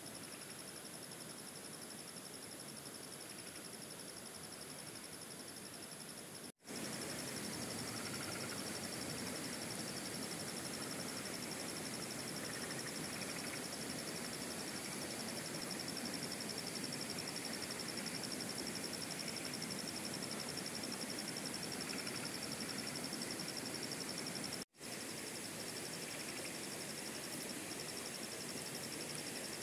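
A steady, high-pitched chorus of night insects trilling over a constant background hiss. The sound cuts out for an instant twice.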